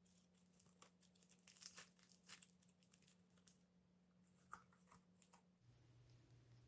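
Faint sticky crackling and clicking of slime being mixed, busiest in the first half and dying out about five and a half seconds in.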